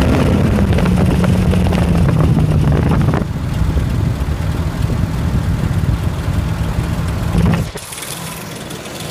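2004 Ford Explorer engine running with a ticking noise from a failing timing chain tensioner. About three seconds in it gets a little quieter, and near the end the low rumble drops away sharply.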